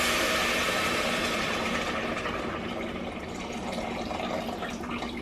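Chicken stock and tomato sauce hitting a hot pan of toasted rice: a loud steaming hiss and sizzle that slowly dies down as the pan cools toward a simmer.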